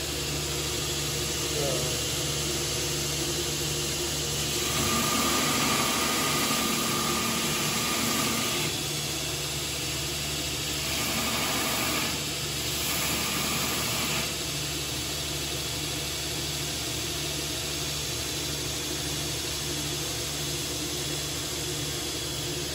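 Belt grinder running with a steady motor hum while a steel spear head is pressed against the belt. There are two grinding passes, one a few seconds in and one around the middle, each a few seconds long. This is rough-grinding the bevel of a pattern-welded spear head.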